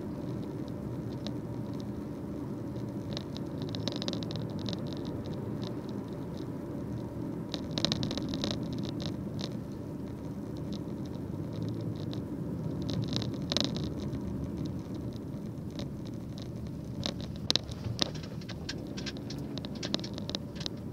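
Steady low road and engine noise inside a moving car's cabin, with scattered clusters of light ticks and rustles over it.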